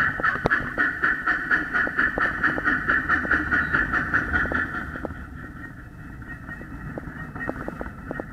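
Backyard model train running along its track: a steady rhythmic chuffing at about three beats a second, with sharp clicks of wheels over the rail. The chuffing fades about five seconds in, then comes back faintly.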